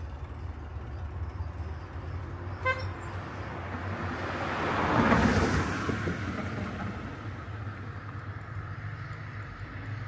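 A motor vehicle passing close by, its noise swelling to a peak about halfway through and then fading, with one short horn toot a couple of seconds before it goes by, over a steady low rumble.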